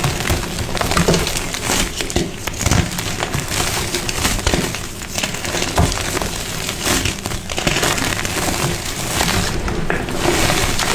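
Brittle, crumbly material being crushed, giving a steady run of dense crunching and crackling with sharper snaps now and then.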